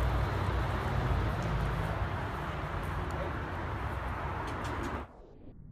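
Steady background noise with a low rumble and a few faint clicks, cutting off suddenly about five seconds in.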